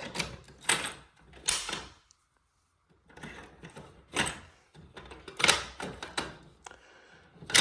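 Several sharp knocks and clicks, spaced unevenly, with a short quiet gap about two seconds in.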